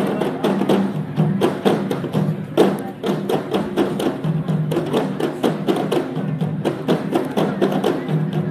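Percussion-led music with rapid, sharp, wood-block-like strikes and drum hits over a steady low tone, accompanying a pencak silat demonstration.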